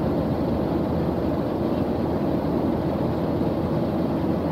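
Steady low cabin noise of a jet airliner in flight, even and unchanging.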